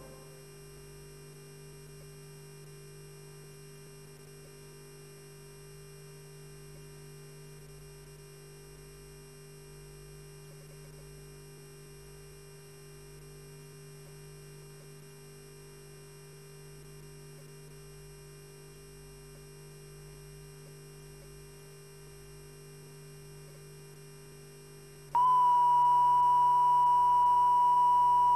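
Steady low electrical hum. About 25 seconds in, a loud, steady, single-pitched beep-like tone starts abruptly and holds: a line-up test tone.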